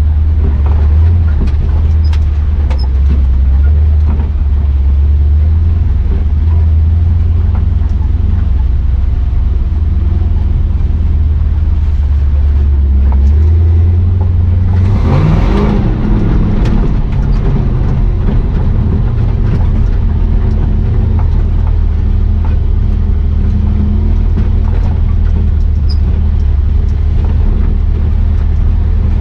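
Swapped-in 6.0 Vortec V8 of a square-body Chevy 4x4 truck running under load while driving. About halfway through, the engine revs up with a rising pitch, joined by a brief burst of rushing noise.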